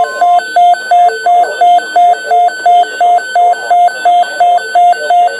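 A weather alert radio's alarm beeping: a loud pulsed electronic tone, about two and a half beeps a second. A steady higher tone underneath cuts off about half a second in.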